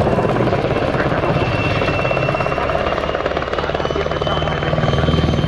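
PZL-Świdnik W-3A Sokół helicopter in display flight: fast, even rotor chop with a steady high turbine whine from its twin turboshaft engines, dipping briefly and swelling again near the end.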